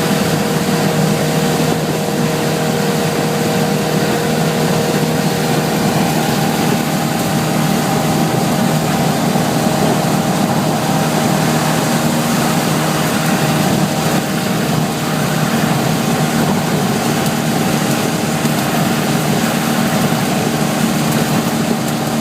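Suzuki LJ80's four-cylinder engine running steadily while driving, with a constant hiss of heavy rain and wind over it. About six seconds in, one of the engine's higher tones drops out and another, lower one takes over, as with a change in engine speed.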